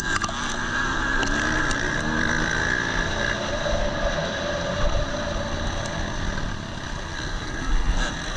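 KTM 250 SX-F four-stroke single-cylinder motocross engine heard from onboard, revving hard with the pitch wavering up and down as the rider works the throttle. It picks up speed and then eases off for a corner. Wind and dirt noise rush over the camera throughout.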